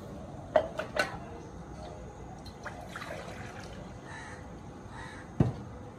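Water trickling and dripping into a large aluminium cooking pot, with two sharp metal clinks against the pot about half a second and a second in, and a dull thump near the end.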